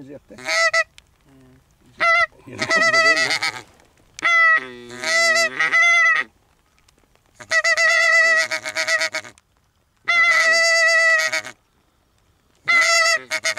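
Greylag geese honking: a run of loud, repeated calls in bursts with short gaps between them, some held for a second or two.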